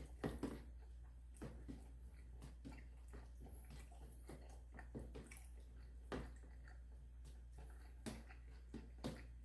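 Close-up eating sounds: wet, squishy chewing and scooping of rice mixed into leftover instant-noodle broth, with scattered short clicks, the loudest a moment in and again near the end.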